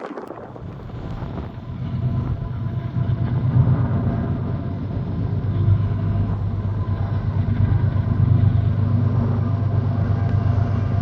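Diesel freight locomotive running, a low steady engine drone that grows louder over the first few seconds and then holds.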